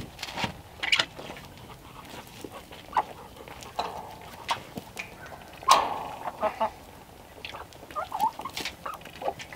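A flock of backyard chickens clucking and calling in short bursts, with scattered sharp clicks and knocks. The loudest sound is a sudden sharp burst a little past halfway.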